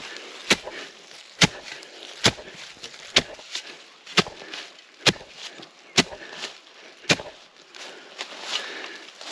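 A digging tool striking into the ground again and again, about eight sharp strokes roughly a second apart, growing weaker near the end.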